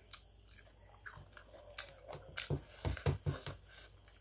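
Close mouth sounds of a person eating food by hand: chewing with wet smacks and clicks, louder and closer together from about halfway through.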